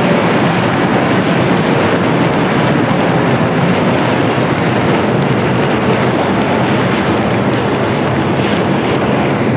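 Airbus A350's Rolls-Royce Trent XWB turbofan engines at takeoff thrust as the aircraft climbs out overhead: a loud, steady rushing jet noise.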